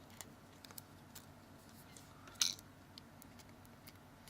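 Faint scattered clicks and taps of small parts and tools being handled on an opened Samsung Galaxy S2, with one sharper click about two and a half seconds in.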